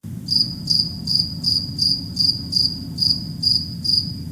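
Cricket chirping: short, high chirps repeated evenly about two and a half times a second, over a low steady rumble.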